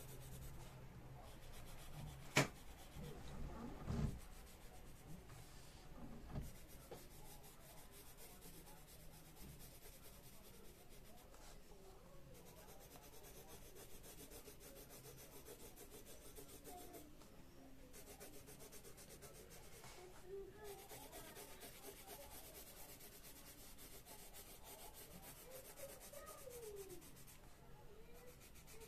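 Colored pencil shading on a coloring-book page: a faint, steady scratching of pencil lead rubbing on paper. A sharp click about two seconds in and a dull knock about four seconds in stand out above it.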